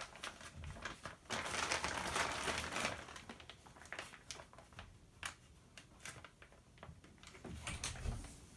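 Woven plastic tarp crinkling and rustling as it is handled, followed by a scattering of short, light clicks of the metal grommet-setting die and punch being handled.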